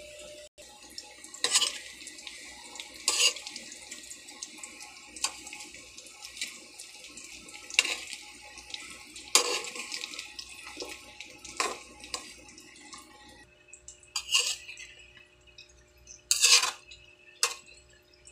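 Sweet potato sticks frying in oil in a pan: a steady high sizzle with about eight sharper bursts of sizzling and pan noise as they are stirred. The steady sizzle thins out about two-thirds of the way through.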